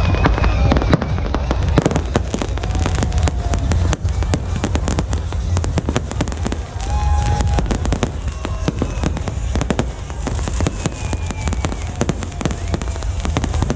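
Fireworks going off without pause: a dense run of sharp bangs and crackles in quick succession over a steady low rumble.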